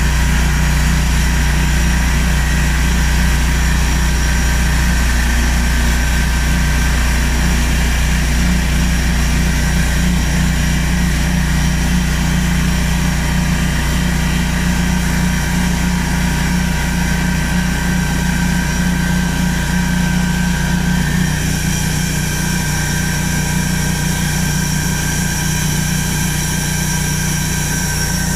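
Large band sawmill running with a steady machine drone and hum. About three-quarters of the way through, the low tones shift and a higher whine comes in.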